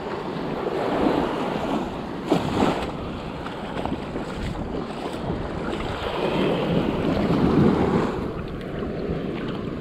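Small surf waves washing up the beach, swelling louder about a second in and again for a couple of seconds near the end, with wind buffeting the microphone. A brief knock about two and a half seconds in.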